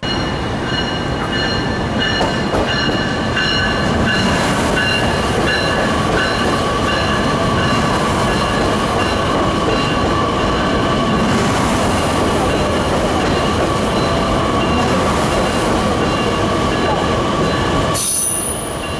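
Metra Electric commuter train pulling out below, a steady rumble of wheels and running gear with several high-pitched tones held over it; the sound drops away near the end.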